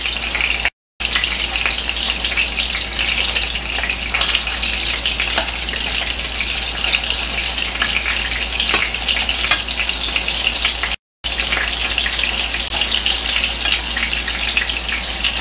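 Chicken meatballs sizzling in hot shallow oil in a frying pan, a dense steady crackle, as they are turned with tongs. The sound drops out twice for a moment, about a second in and again near eleven seconds.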